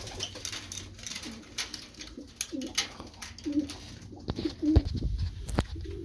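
Pigeons cooing, a string of short low coos one after another, with scattered clicks and knocks and one louder thump late on.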